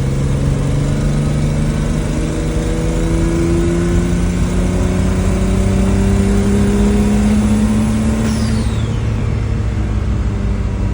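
Turbocharged BMW E46's M54 inline-six pulling under boost, its note rising steadily. About eight seconds in there is a faint pop, a high whistle falls away and the engine note drops back: a loss of boost that the driver takes for an intercooler coupling popping off.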